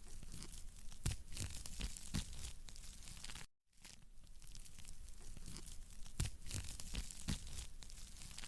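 Wood fire crackling and popping in a fireplace, sharp irregular snaps over a steady hiss, broken once by a short gap of silence about three and a half seconds in.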